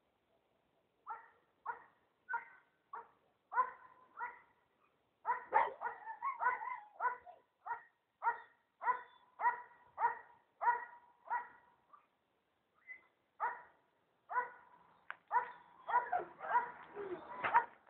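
German Shepherd barking in a long, steady series of about one and a half barks a second, starting about a second in, pausing briefly about two-thirds of the way through, then resuming more densely.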